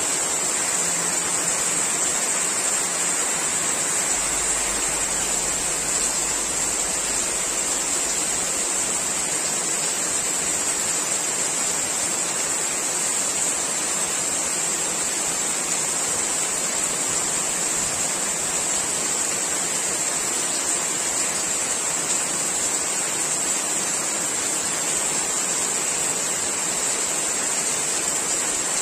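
Heavy rain pouring steadily onto trees and leaves: a constant dense hiss with no thunder.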